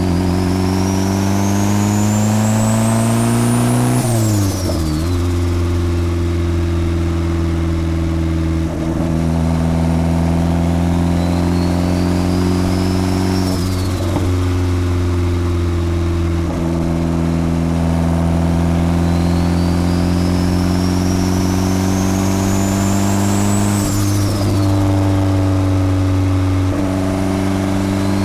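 Turbocharged Honda Civic D16 four-cylinder engine pulling under boost, with a high turbo whine that rises over several seconds and cuts off sharply at each gear change, three times. At each cut there is a brief turbo flutter as the throttle lifts.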